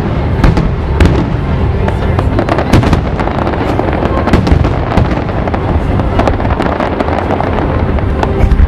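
Aerial fireworks exploding in quick succession, a dense run of sharp bangs and crackles with no pause.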